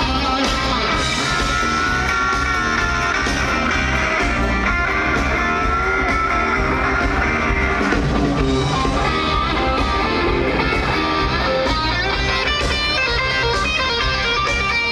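Live rock band playing on an outdoor stage PA, guitar-led, heard from within the crowd.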